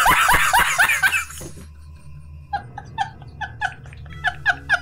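A man laughing hard in quick loud bursts that die away after about a second and a half. Then quieter, squeaky laughter in short evenly spaced pulses, about four a second.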